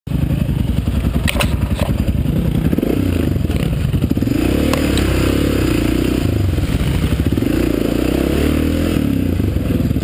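Dirt bike engine running at low trail speed, heard from on the bike itself, its pitch rising and falling with the throttle. A few sharp knocks cut through it in the first five seconds.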